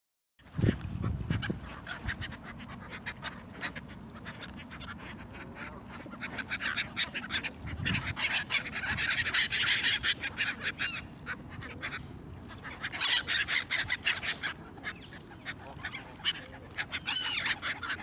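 A mixed flock of black-headed gulls and Canada geese calling over one another: many overlapping high squealing gull calls with goose honks among them, busiest about halfway through and again a few seconds later. A low bump sounds right at the start.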